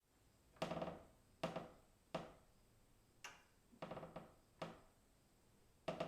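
A distant wooden beam creaking in a string of short creaks, about seven of them, each a brief pitched creak with a fading echo. The last one starts near the end and runs on.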